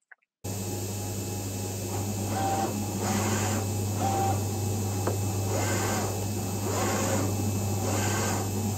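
Vulcan FC500 flatbed cutter running as its tool head travels and cuts registration marks in a printed sheet with a knife. It starts about half a second in: a steady low hum with repeated swells of whirring motor noise as the head moves, a few short motor tones and one click.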